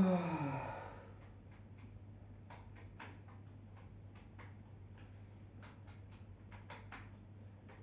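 Faint, scattered light clicks and taps of hands handling a reel-to-reel tape deck, over a steady low hum.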